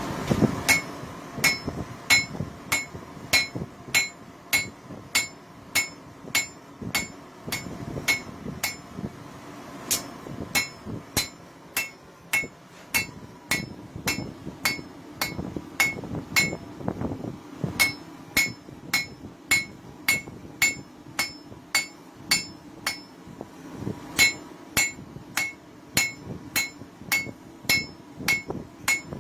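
Hand hammer striking a hot railroad spike on an anvil in a steady rhythm, about one and a half blows a second, each blow with a bright ringing tone from the anvil, with a couple of short breaks.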